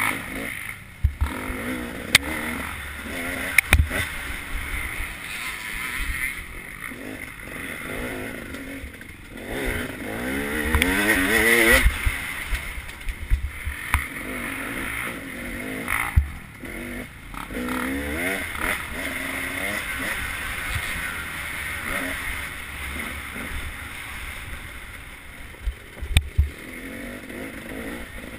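Dirt bike engine revving up and down as the bike is ridden hard along a rough trail, heard from on the bike, with a long rise in pitch about ten seconds in. Sharp knocks from bumps cut through at intervals.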